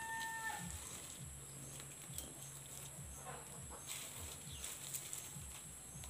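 A short held animal call at the very start, then quiet with a low steady hum and faint rustling of dry leaves and debris being handled.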